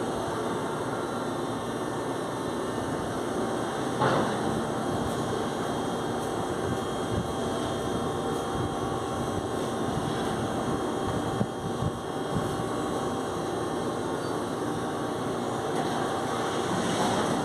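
Steady machinery drone with faint steady tones, and a single knock about four seconds in.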